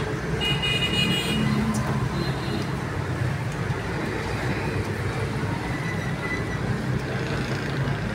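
Steady street traffic noise with a constant low rumble, and a brief high tone about a second in.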